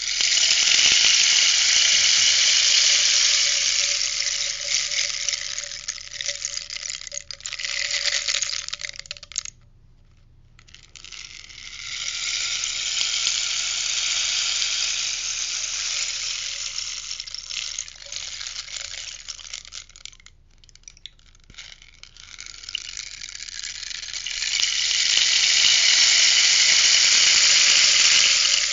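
Rainstick tipped over again and again, its filling trickling down the tube in three long rushing cascades. Each cascade swells and then fades. There are short pauses, about ten seconds in and again about twenty seconds in.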